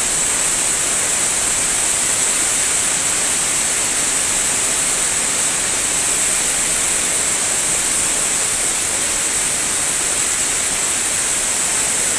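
Floodwater rushing steadily, an even roar of moving water with a strong hiss and no breaks.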